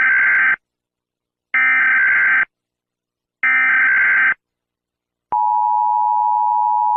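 Emergency Alert System data tones: three short, shrill warbling bursts of SAME digital code about a second apart, the end-of-message signal that closes an alert. About five seconds in they are followed by a steady two-tone EAS attention signal held for about two seconds.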